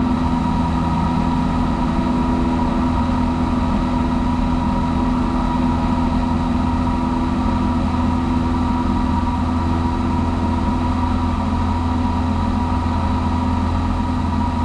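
Cessna 172S's four-cylinder piston engine and propeller running at a steady, unchanging pitch.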